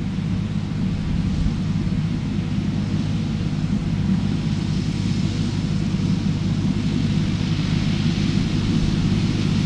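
John Deere 1030 tractor's three-cylinder diesel running steadily under load while mowing with a PZ-Zweegers mower, with a hiss from the mower over the engine drone, slowly getting louder.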